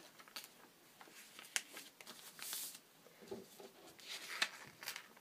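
Faint handling sounds of a paper design sheet being pinned to fabric: soft paper rustling with small clicks and taps, and a couple of louder rustles about halfway and near the end.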